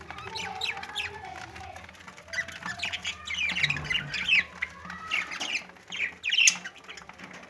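Budgerigars chattering, many short sharp chirps and squawks overlapping.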